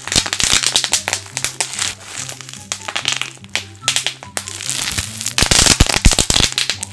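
Bubble wrap twisted and squeezed by hand, its bubbles popping in rapid irregular cracks with plastic crinkling, the pops thickest near the end. Background music plays under it.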